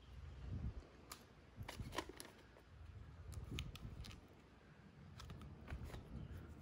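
Faint scattered clicks and light handling noise from hands working small parts: a metal pin being pushed back into an RC servo's gear case, then a plastic tube of silicone grease picked up.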